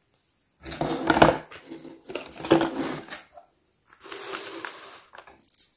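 Clear plastic bag and paper packaging rustling and crinkling as they are handled, in several bursts.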